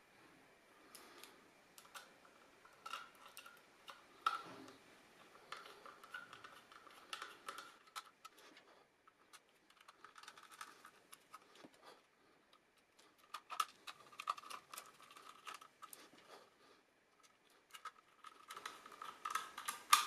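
Small Phillips screwdriver driving tiny screws into a metal laptop drive cradle: faint clicks and light metal-on-metal scraping in short bursts, with brief pauses between screws.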